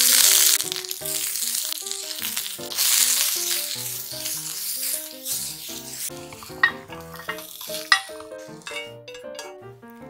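Shishito peppers and shiitake mushrooms sizzling in hot olive oil in a square pan. The sizzle is loudest as they hit the oil at the start, swells again while they are stir-fried, and dies down near the end. Two sharp clicks come as the vegetables are stirred, and light background music plays throughout.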